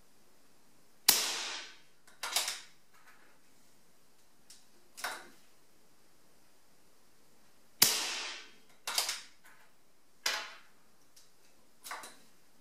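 A PCP air rifle fires twice, about seven seconds apart. Each shot is a sharp crack with a short ringing tail in the room. Between and after the shots come several quieter clicks and clacks of the rifle's action being worked for the next shot.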